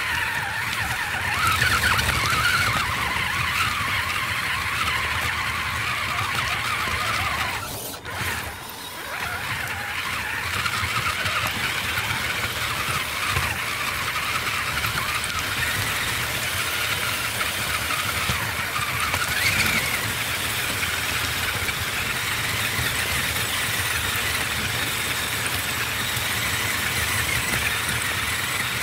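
Scale RC rock crawler's electric motor and gear drivetrain whining as it drives, the whine wavering with the throttle. It drops out briefly about eight seconds in.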